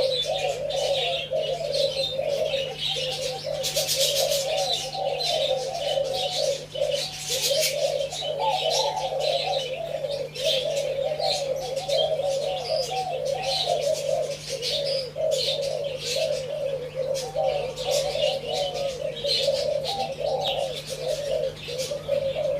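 Spotted doves cooing without pause, their coos overlapping, with higher chirps of small birds over them and a faint steady low hum underneath.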